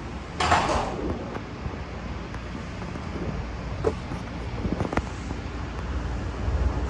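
Blue Line subway car standing at a platform and starting to pull away, heard from inside the car: a steady low rumble, a short hiss about half a second in, and a few clicks and knocks later on.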